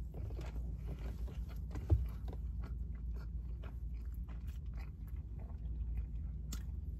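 Close-up chewing of a bite of Philly cheesesteak sub on a toasted roll: soft, irregular wet clicks and smacks of the mouth, with one short low thump about two seconds in, over a steady low hum.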